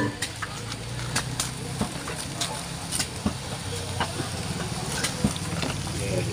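A small engine running steadily at idle, a low drone with a fast even pulse, with scattered sharp clicks over it.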